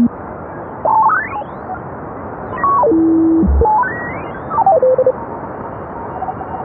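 Audio from a Soft66LC2 software-defined radio tuning across the 20-meter CW band: the tones of Morse (CW) station carriers sweep up and down in pitch in small steps as the tuning passes them, over a steady band hiss. Faint steady CW tones sit in the hiss near the end.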